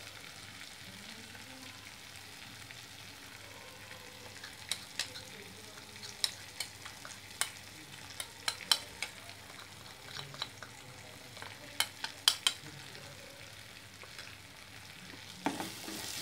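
Masala frying faintly in oil in a clay pot, with scattered sharp clicks. Near the end, a steel spoon starts stirring and scraping the spice powders in with the tomato mixture. The powders are being roasted in the oil.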